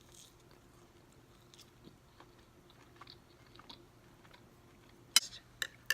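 A person chewing a mouthful of slow-cooked pot roast, with faint wet mouth clicks, and a few sharp clicks about five seconds in.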